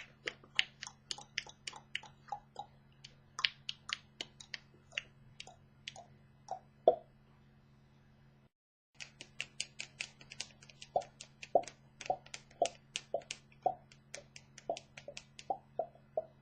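A long series of sharp clicks or snaps made by a person, about three to four a second and uneven in strength, with a brief break of dead silence about halfway through.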